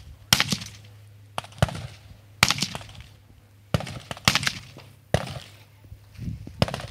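Distant gunshots: a string of sharp cracks at irregular intervals, roughly one or two a second, each followed by a short echo.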